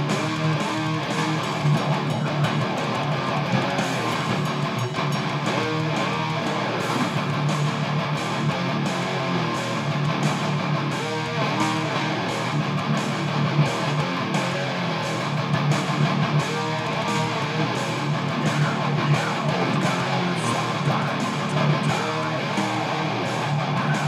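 Electric guitar played without a break.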